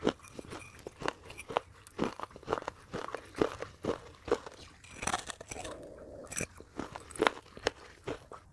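Close-miked, sharp crunching as pieces of baked clay pot are bitten and chewed, a run of irregular brittle cracks several times a second with a brief softer grinding stretch a little past halfway.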